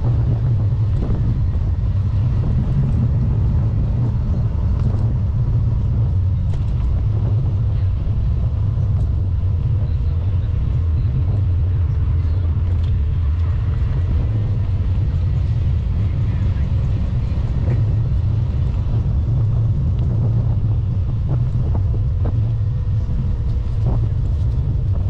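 Steady low rumble of riding a bicycle along a concrete path, picked up by the rider's own camera, with no break in its level.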